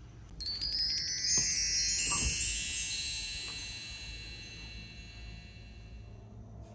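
A cascade of bright, high chime tones, like wind chimes, struck rapidly together for about two seconds and then ringing out and fading over several seconds.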